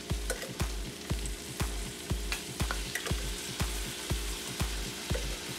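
Sliced mushrooms and onions sizzling in butter in a nonstick frying pan, with freshly added minced garlic; a steady hiss with scattered small crackles. A low thump repeats about twice a second underneath.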